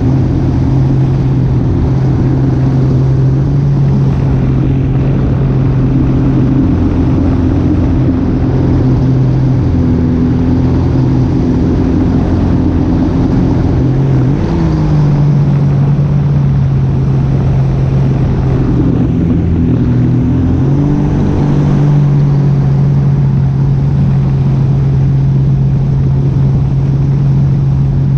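A motor vehicle engine running steadily with a low hum, its pitch stepping up about halfway through and again around twenty seconds in.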